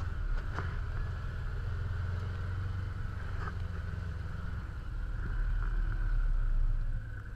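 Can-Am Commander 1000 side-by-side's V-twin engine running at low speed as a steady low rumble. It grows louder about five seconds in and eases off near the end.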